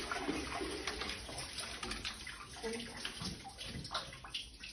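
Hand-cranked well windlass winding its chain onto the wooden drum as a metal bucket of water is hauled up, with water splashing and dripping from the bucket. The sound is fairly quiet, with small clicks over it.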